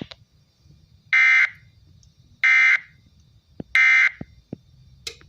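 Three short bursts of EAS SAME data tones, each about a third of a second long and a little over a second apart: the end-of-message code that closes the relayed Required Weekly Test. A few faint clicks fall between and after them.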